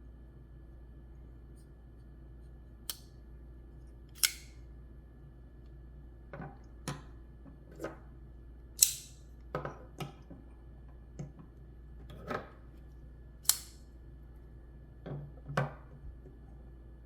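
Bestech-made Matsey Basilisk folding knife with a titanium frame-lock handle being worked by hand: about a dozen sharp metallic clicks and snaps at irregular intervals as the blade is opened and closed. The loudest few carry a brief high ring.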